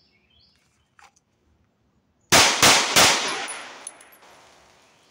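Three quick shots from a Walther PPQ SC subcompact 9mm pistol, about a third of a second apart, the last report fading away over about a second and a half.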